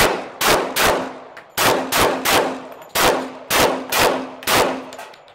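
Semi-automatic pistol fired about ten times at roughly two shots a second, with two short pauses between strings. Each shot is a sharp crack followed by a brief echo.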